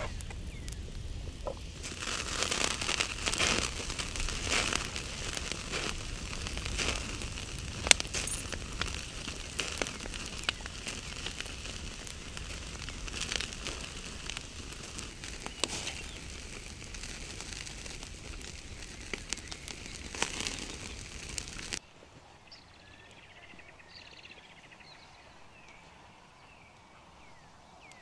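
Wood fire crackling, with a steady rustle of small crackles and frequent sharp pops. About 22 seconds in it cuts off abruptly to a quiet background with faint bird chirps.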